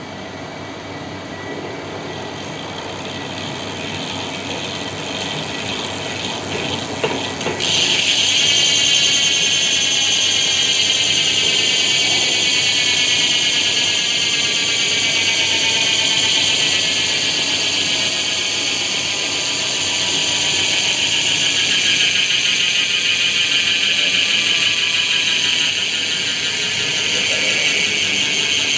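NOVATEC bicycle freehub freewheeling, its pawls clicking over the ratchet ring so fast that they make a continuous high, cricket-like buzz. The buzz gets much louder suddenly about seven seconds in, then drops slowly in pitch as the wheel spins down and the clicks come further apart.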